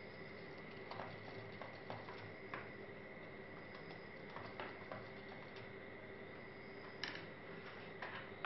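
Scattered light clicks and taps of laptop parts being handled during disassembly, over a steady faint hum.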